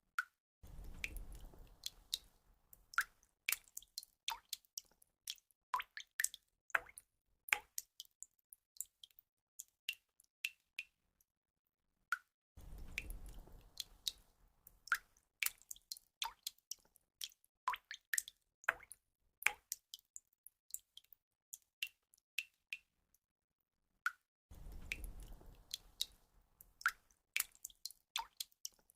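Water drops falling and dripping: many separate short plinks, some with a brief ringing note. A low rushing sound comes in under them near the start, again about 12 seconds in and again about 24 seconds in, so the pattern repeats every 12 seconds or so.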